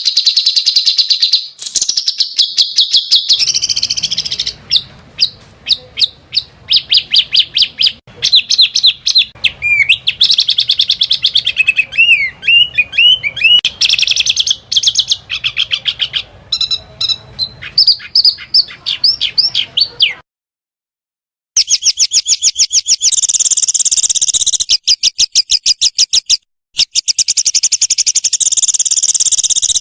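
Small songbirds singing rapid-fire bursts of fast, high repeated notes and trills, the 'tembakan' song used to train competition birds. The song breaks off into silence about two-thirds of the way through, then resumes with a denser, higher trill.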